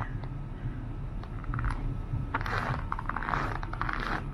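Footsteps crunching on cold packed snow, starting up about two seconds in at roughly two steps a second, over a steady low rumble.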